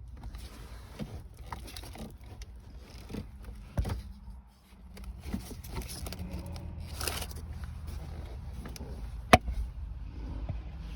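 Handling noise from plastic dashboard trim being worked loose and moved: scattered knocks and clicks, a rustling scrape about seven seconds in, and one sharp, loud click a little after nine seconds.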